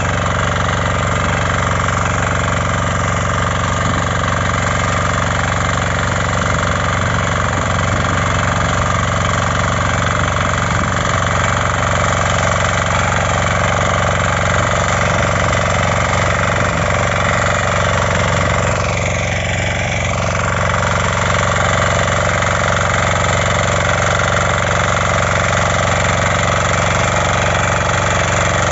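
Shrachi 6D3 power weeder's 6 HP single-cylinder diesel engine running steadily as its rotary tines work the soil between crop rows. About two-thirds of the way through the engine note dips briefly and recovers.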